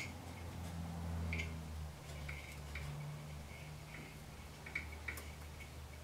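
Faint small metallic clicks and ticks of a 1/8-inch Allen wrench working a set screw on a band saw's motor pulley, several scattered ticks over a low steady hum.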